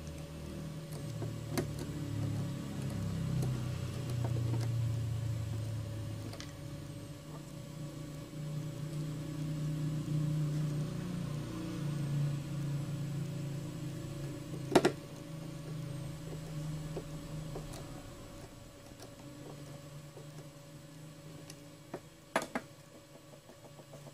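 Small screwdriver working on a plastic thermostat housing, with a few sharp clicks and taps, the loudest about two-thirds of the way through and two more close together near the end, over a steady low rumble and hum.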